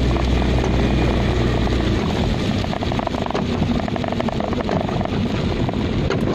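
Car driving on a rain-soaked road, heard from inside the cabin: a steady low rumble of engine and tyres, with a dense hiss of tyre spray and many small ticks. The low drone breaks up about two seconds in.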